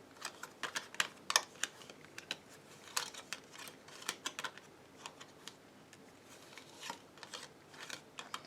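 Tarot cards being shuffled and handled, a string of light, irregular clicks and taps.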